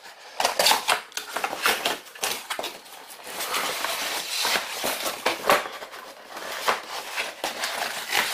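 A small accessory box being opened and its contents rummaged through: irregular rustling and crinkling of packaging with light clicks and clatters of small hardware.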